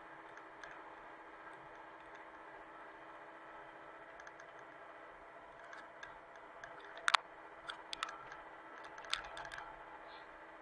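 Faint steady hum of a Hitachi mini excavator's engine, with a scatter of sharp clicks and knocks, the loudest about seven seconds in.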